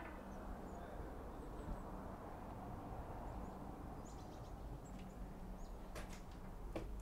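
Faint, scattered bird chirps over a steady low background hiss, with two short knocks near the end.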